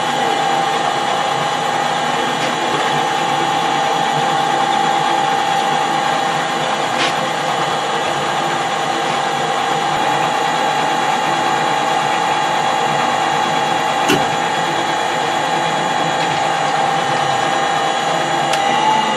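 Metal lathe running through a light 5 thou cut along a bar: a steady gear whine over the machine's running noise, with a few sharp clicks along the way. The whine rises slightly in pitch right at the end.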